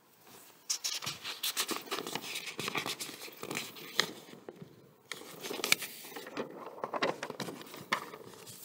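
Sheets of printed paper rustling and crackling as they are handled and turned to the next page, starting just under a second in, with irregular sharp crinkles.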